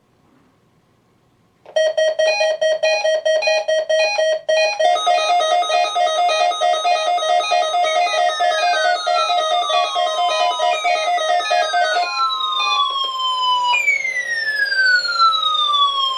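Weather alert radio sounding its alarm for a weekly test. After a couple of seconds of quiet, a loud, fast-pulsing electronic beep starts, and from about halfway in it is joined by repeated falling, siren-like sweeps.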